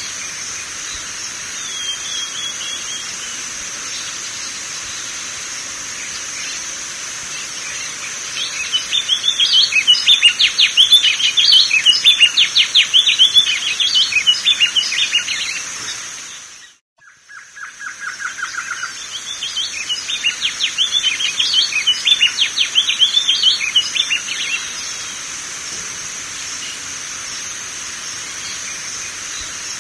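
Coleiro-do-norte (wing-barred seedeater) singing: two long songs of rapid, fast-repeated whistled notes, each lasting about six seconds, with a short call near the start and again near the end. A steady high-pitched hiss runs underneath, and the sound briefly drops out between the two songs.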